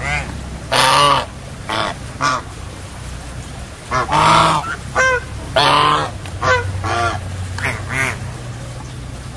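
Domestic ducks quacking: about a dozen short, loud quacks in an irregular run, some in quick pairs, the loudest about a second in and again around the middle.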